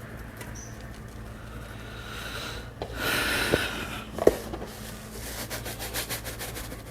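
Pepper mill grinding black pepper: a run of rapid, scratchy clicks through the second half, after a rustle and a couple of light knocks.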